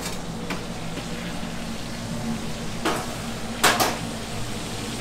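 Steady background hum of a working kitchen, broken by a few sharp clatters of kitchenware. The loudest is a quick double knock near four seconds in.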